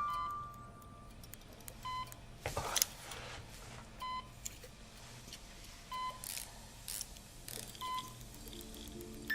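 A short electronic beep repeating about every two seconds, with a few brief swishing noises between the beeps.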